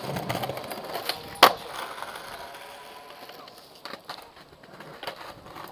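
Skateboard wheels rolling over stone paving slabs, with one loud sharp clack of the board about one and a half seconds in. Quieter rolling and a few light clicks follow.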